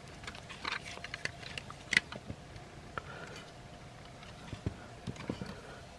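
Light plastic clicks and handling noise from a plastic Transformers figure's parts being moved and pegged, with one sharper click about two seconds in.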